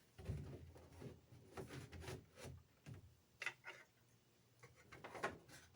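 Faint, irregular clicks and rubbing of hard plastic parts being handled and set in place: a fan being fitted back into its 3D-printed PLA mount.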